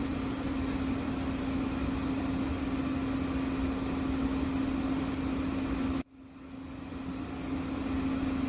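Steady mechanical hum with a strong low droning tone, as of a fan or pump running. It cuts out abruptly about six seconds in, then comes back and builds up over the next couple of seconds.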